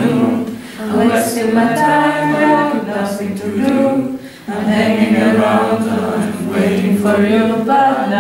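A group of young men and women singing a song together in mixed voices, holding long sung notes, with short breaks between phrases near the start and about four seconds in.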